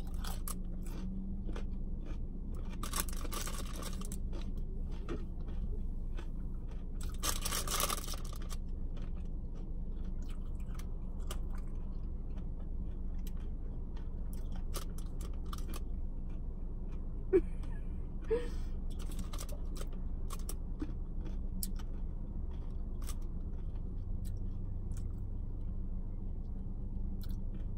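Someone eating fast food: chewing and crunching with scattered small clicks and two louder rustles of a paper food wrapper in the first several seconds. A steady low hum from the parked car runs underneath.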